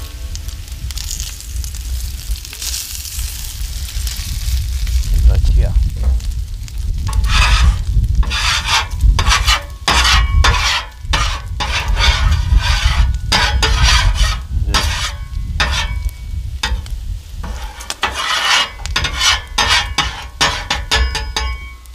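Bacon fat sizzling on a hot steel flat-top griddle, then from about six seconds in a metal griddle scraper scraping back and forth across the steel through the grease in quick repeated strokes, about two a second. A steady low rumble runs underneath.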